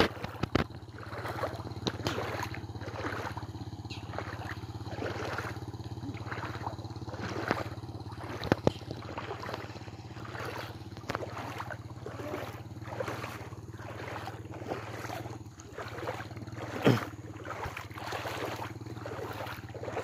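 An engine running steadily as a low hum, under water sloshing and wind buffeting the microphone in short surges, with a couple of brief louder knocks.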